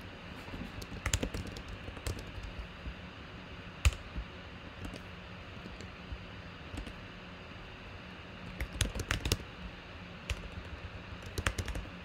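Typing on a computer keyboard in short bursts, with a few separate clicks between them, over a steady low hum.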